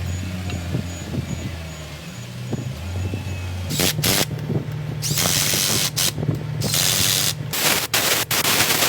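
Pneumatic impact wrench run in four short bursts, rattling as it drives the wheel-end bolts, over background music with a steady bass line.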